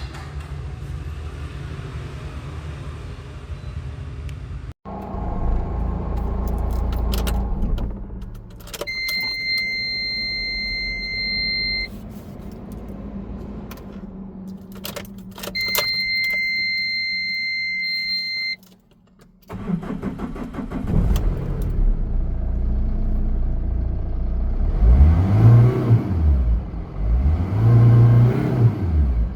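Car engine running, then two long, steady electronic beeps of about three seconds each, then the engine revved up and down several times, loudest near the end.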